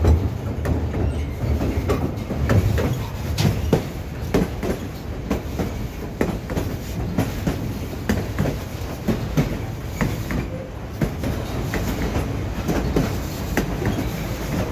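Passenger car of the White Pass and Yukon Route railway rolling along the line: a steady low rumble with irregular clicks and clacks of the wheels on the track.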